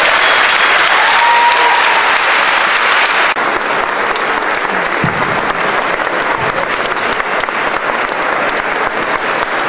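Audience applauding, a dense clatter of many hands clapping that eases slightly about three seconds in.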